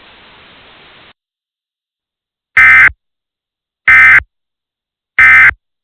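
Emergency Alert System end-of-message signal: three short SAME digital data bursts, each about a third of a second long and a little over a second apart, marking the end of the weather warning broadcast. A faint hiss in the first second cuts off before them.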